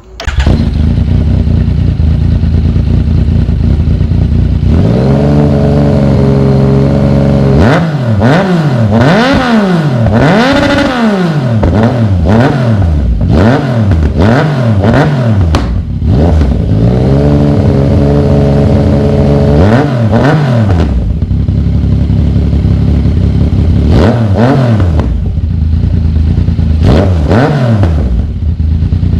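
Yamaha MT-09's three-cylinder engine, breathing through a full 3-into-1 stainless-steel exhaust with a Scorpion GP720 muffler, revved while standing. It idles, is held at raised revs, then gets a run of quick throttle blips, is held up again, drops back to idle and gets more blips near the end. The exhaust note is deep and velvety.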